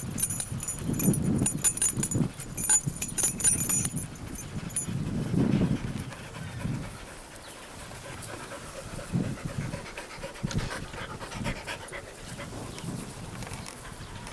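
Dog panting in quick, rhythmic breaths. The breaths are loudest in the first few seconds and grow softer after about six seconds.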